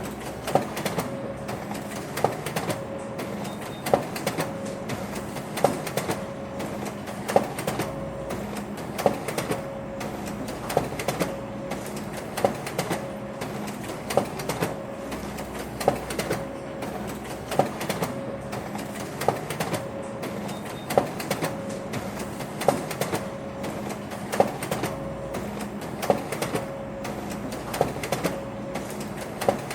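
Office printer running in a repeating mechanical cycle: a steady motor hum and whine with a sharp clack about every second and a half to two seconds and lighter clicks in between.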